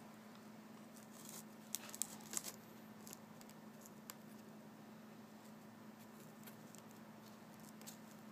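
Faint clicks and taps of a ceramic tile and plastic tile-leveling caps being handled and adjusted by hand: a cluster of sharp clicks about two seconds in, then a couple more, over a faint steady hum.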